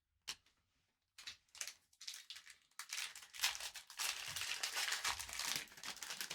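Wrapper of a Panini Prizm basketball hobby pack being torn open and crinkled by hand: irregular crackling that thickens through the second half.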